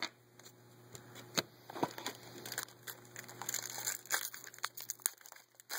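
Trading card pack wrappers being crinkled and torn open, with cards being handled, giving a string of irregular crackles and small clicks.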